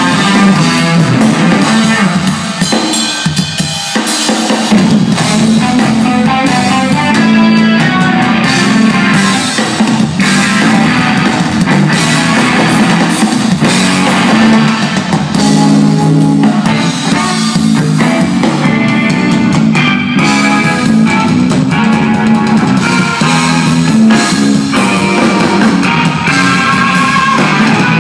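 Live instrumental rock played loud by a trio: electric guitar, electric bass and drum kit.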